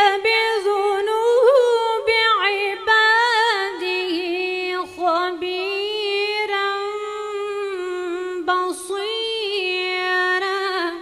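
A woman reciting the Quran in the Moroccan melodic style, through a microphone. Long held notes with ornamented turns, broken by brief breaths about five seconds in and again past eight seconds; the voice stops near the end.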